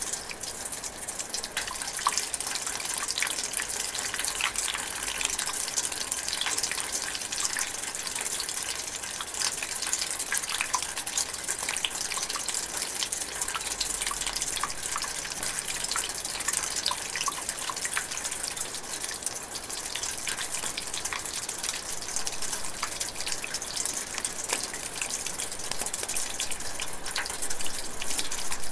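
Steady light rain pattering on leaves: a continuous high hiss with many small drips ticking through it.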